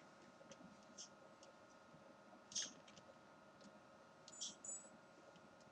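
Near silence: room tone with a faint steady electrical hum and a few soft, scattered clicks.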